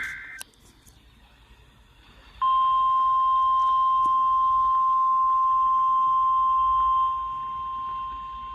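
NOAA Weather Radio Emergency Alert System signal: the end of a short burst of the digital SAME header's data tones, then, about two and a half seconds in, the 1050 Hz warning alarm tone. The alarm tone is a loud, steady, single high tone that drops in level about seven seconds in and keeps sounding.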